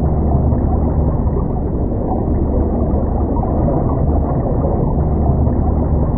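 Underwater ambience: a steady, muffled low rumble of moving water, dull and deep, with no distinct calls or events.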